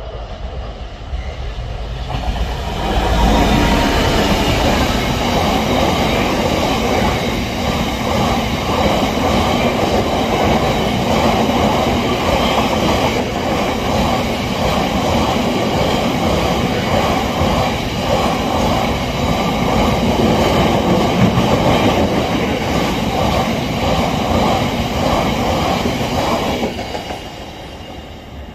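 Diesel-hauled freight train passing: a steady, loud rumble of wagons rolling by that rises sharply about three seconds in and fades away near the end.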